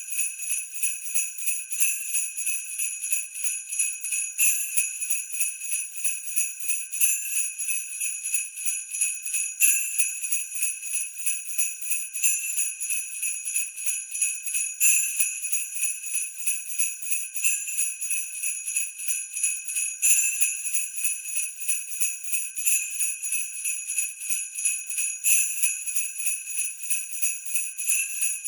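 Sleigh bells jingling in a steady rhythmic shake, about three shakes a second, with a stronger accent about every two and a half seconds.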